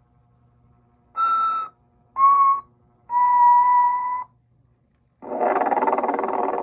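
Vintage Telco Motion-ette Sleeping Santa animated figure playing its built-in sleep sounds. There are three short whistled notes, each a little lower than the last and the third one longer, then a long snore starting about five seconds in.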